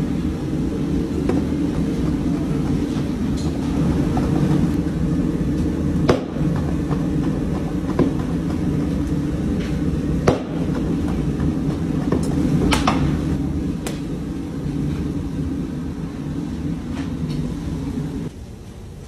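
Two large knives rapidly chopping raw meat into mince on a cutting board: a dense, continuous run of knocks with a few sharper strikes here and there. It stops shortly before the end.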